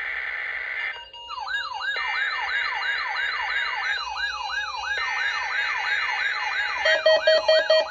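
NOAA Weather Radio SAME header for a Required Weekly Test: three harsh, buzzing digital data bursts of about two seconds each with short gaps between them. Over them an electronic siren-like tone sweeps up and down about twice a second. Near the end it gives way to a pulsing electronic alert tone.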